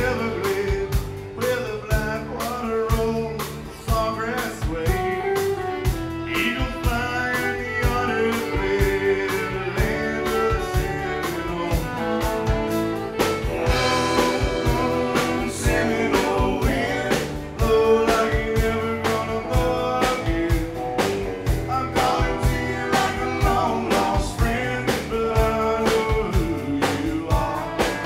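Live country-rock band playing, with drums keeping a steady beat under guitars and bass and a voice singing.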